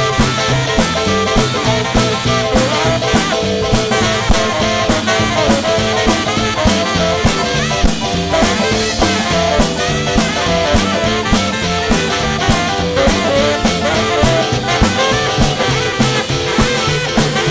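Live swing band playing an up-tempo number with a steady beat: upright bass, drum kit, saxophone, electric guitar and keyboard.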